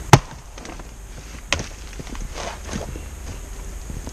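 Splitting axe chopping into a big firewood round: one heavy, sharp strike just after the start, then a lighter knock about a second and a half later.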